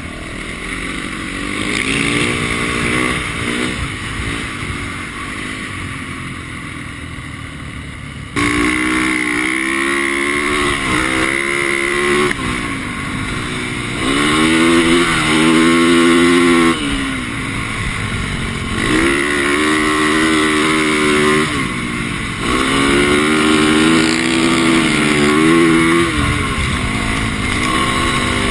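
450 cc single-cylinder four-stroke dirt bike engine revving up and falling back again and again as the throttle is opened and closed, about five climbs in all. It gets suddenly louder about eight seconds in.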